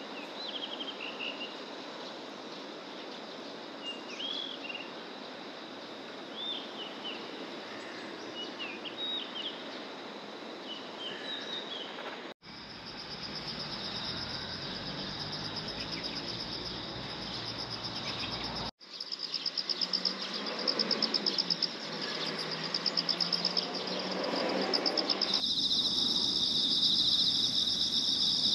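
Outdoor ambience of small birds giving short chirps every second or two over a steady hiss. After a cut, insects trill in a continuous high, rapidly pulsing drone, and a second, lower insect trill joins it near the end.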